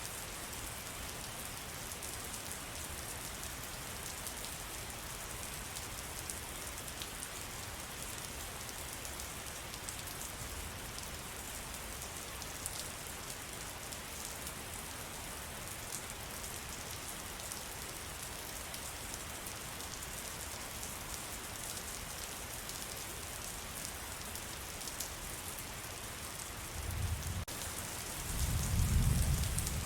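Steady rain in a forest: an even hiss with scattered drop ticks. Near the end a low rumble swells twice, the second one louder, then fades.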